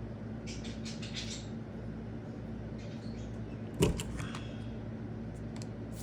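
Light rustling and clicking of small paper tags being handled, then one sharp snap about four seconds in as a Crop-A-Dile hand punch bites through a tag, followed by a few small metallic clicks.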